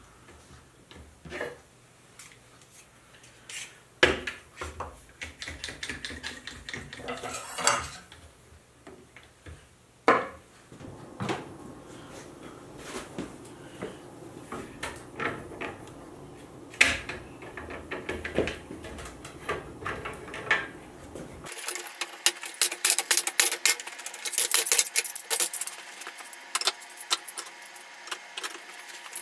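Metal bar clamps clinking and clicking as they are set and tightened: scattered sharp metallic knocks and rattles. About two-thirds of the way through they turn into a dense, quick clatter.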